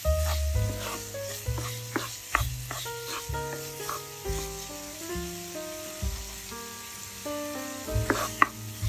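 Crumbled tofu and onion sizzling in a non-stick pan while a spatula stirs and scrapes through it, with a few sharper scrapes near the end. Background music with a stepping bass line plays throughout.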